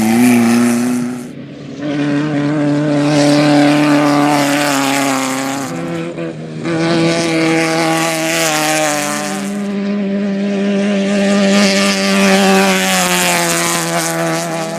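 Off-road race vehicle's engine heard on board, running hard at a near-steady pitch over wind and dirt noise. It lets off briefly twice, about a second in and about six seconds in, and steps up in pitch around nine seconds in.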